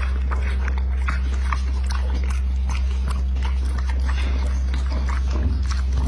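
Bully-breed dog chewing and smacking its mouth while eating soft food, with many quick, irregular wet clicks, over a steady low hum.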